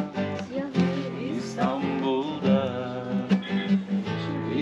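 Acoustic guitar strummed steadily, with voices singing a Turkish song over it.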